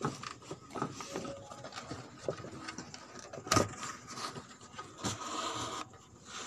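Cardboard being handled: light knocks, rustling and scraping as a cardboard mock optical drive is pushed into place inside a cardboard box, with one sharper knock about three and a half seconds in and a brief scraping rub near the end.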